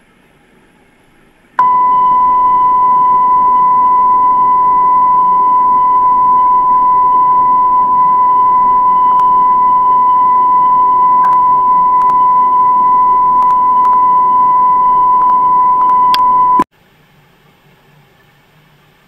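A single steady electronic test tone, a high beep held for about fifteen seconds, starting about a second and a half in and cutting off suddenly near the end. Faint tape hiss before and after it.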